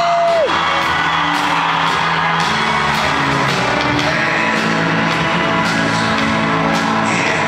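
Music with a steady beat playing over an arena's sound system; a long held note slides down and cuts off about half a second in.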